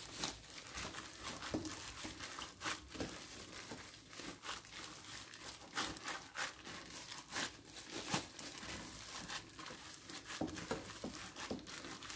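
Gloved hands kneading minced lamb mixture in a glass bowl: irregular, faint crinkling of the thin plastic gloves with soft sounds of the mince being pressed and turned.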